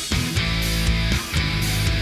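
Background heavy rock music with electric guitar and a steady beat.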